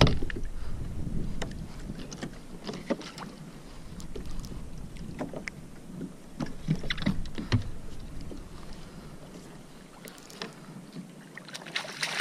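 Water lapping and knocking against a kayak hull, with wind on the microphone and scattered knocks of gear. Near the end, a hooked king mackerel splashes at the surface beside the kayak.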